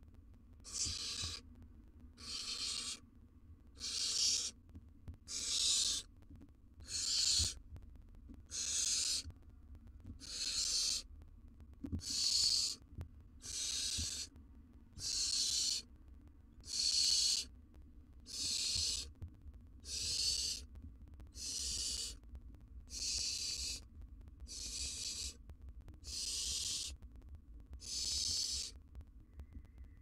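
Barn owl nestlings hissing over and over: the breathy 'snoring' food-begging call of barn owl chicks. The hisses come about one a second, each lasting just under a second.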